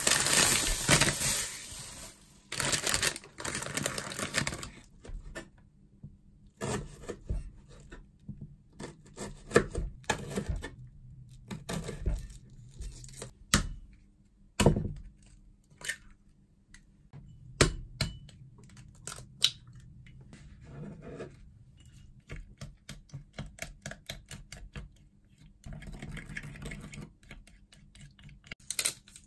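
Kitchen prep sounds: a plastic bag crinkling in the first few seconds, then irregular knocks of a knife chopping greens on a plastic cutting board, and near the end chopsticks rapidly clicking against a ceramic ramekin as an egg is beaten.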